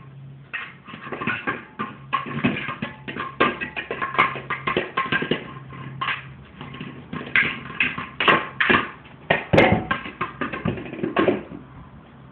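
Running egg toy clattering and bouncing in quick irregular knocks as it is batted around, over a low steady hum.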